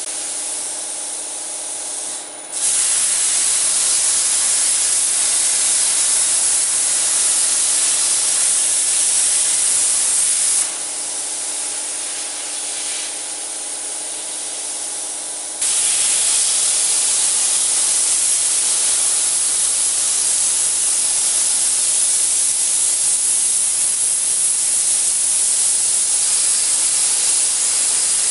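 Cutting torch of a portable CNC cutting machine giving a steady, loud hiss as it cuts through steel plate. It turns quieter and thinner for the first couple of seconds and again for about five seconds in the middle.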